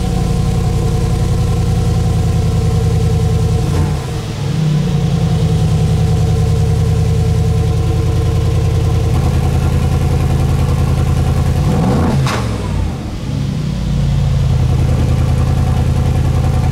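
Brabus 800 Widestar's twin-turbo V8 running through its Brabus stainless-steel valve-controlled exhaust, loud and steady. There is a short dip in level about four seconds in and a quick swing in pitch, down and back up, near twelve seconds.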